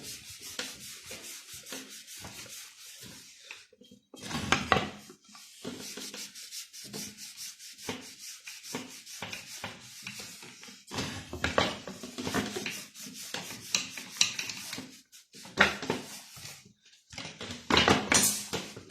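Hand scrubbing and rubbing on a CG 125 motorcycle's rear hub as cleaner and red polishing compound are worked into the metal. The strokes are scratchy and uneven, with louder stretches now and then.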